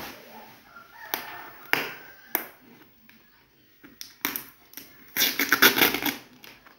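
Scissors cutting through plastic packing tape on a cardboard box, several short sharp snips and crackles. About five seconds in comes a louder tearing stretch of about a second as the tape is pulled up off the cardboard.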